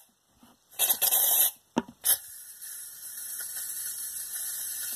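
Aerosol can of shaving foam spraying foam out: a short hissing spurt about a second in, then a steady hiss from about two seconds in.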